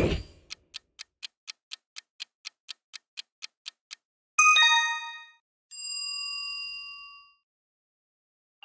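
Quiz-show sound effects: a short loud burst, then a clock ticking about four times a second for a few seconds, a bright ringing chime, and a held bell-like tone that fades out. This is the sound of a countdown timer running out and the answer being signalled.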